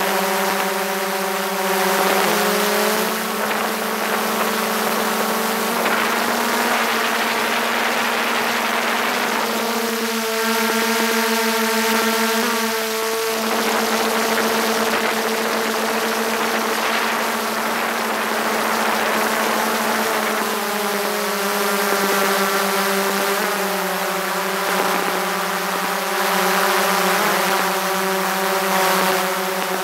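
DJI Mavic 2 Pro quadcopter's four motors and propellers whining steadily in flight, heard up close from a camera mounted on the airframe. The pitch steps up or down a few times as the motors change speed, about three, thirteen and twenty-one seconds in.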